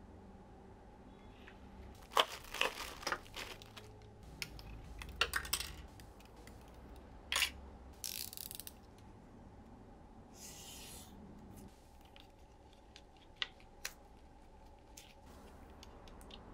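Hands handling a model car kit's paper sheets and plastic parts on a desk: scattered rustles, taps and clicks, busiest in the first half, with two sharp clicks past the middle.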